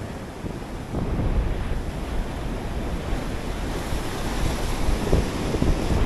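Ocean surf washing in, with wind buffeting the microphone; the rush grows louder about a second in.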